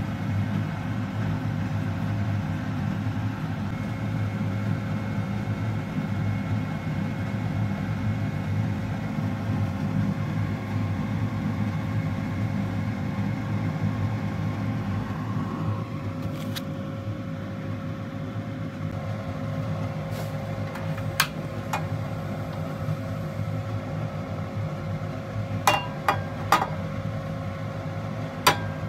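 Steady low mechanical hum with a constant faint tone running through it, broken near the end by a few sharp clicks.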